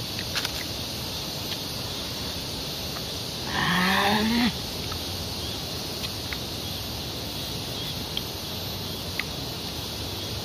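A cow mooing once, a single call of about a second that rises slightly in pitch, about a third of the way in, over a steady outdoor hiss with a few faint clicks.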